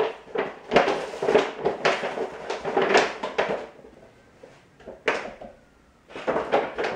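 Large plastic whey-protein bag crinkling and rustling in quick bursts as it is handled and a scoop of powder is dug out. It goes quieter after about three and a half seconds, with one more sharp rustle and then further crinkling near the end.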